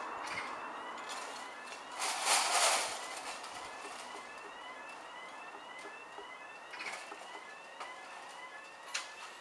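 Level crossing warning alarm sounding while the automated barriers rise: a quick repeating series of short rising electronic chirps, about two or three a second. A loud burst of noise lasts about a second starting about two seconds in, and sharp clunks come near seven and nine seconds.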